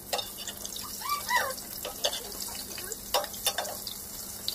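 Fish sizzling in hot oil in a wok, a steady crackling hiss, with a metal spatula and ladle clinking against the pan several times as the fish are turned and basted.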